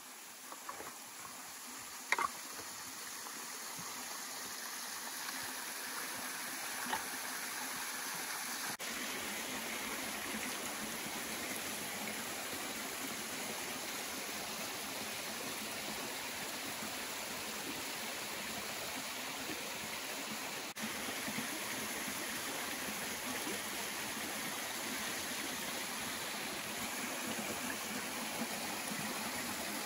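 Spring water spilling from a pipe outlet down a rock face into a creek as a small waterfall: a steady rushing that builds over the first several seconds, then holds. One sharp knock about two seconds in.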